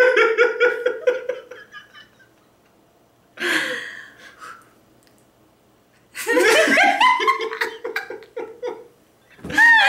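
Helpless fit of giggling laughter in runs of short pulsing laughs: one run at the start, a breathy burst about three and a half seconds in, and another run from about six seconds in, with short quiet gaps between.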